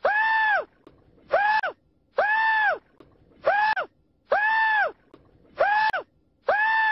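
A person screaming over and over in short high-pitched yells, about one a second, each rising and then falling in pitch, with longer and shorter yells alternating.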